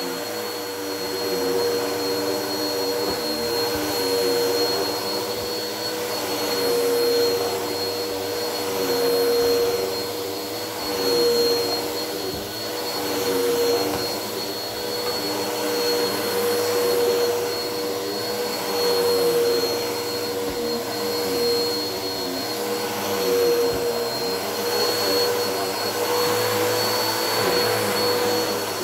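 Bissell vacuum cleaner running continuously, a steady motor hum with a thin high whine, its loudness and lower tones swelling and dipping every few seconds as it is pushed over the floor.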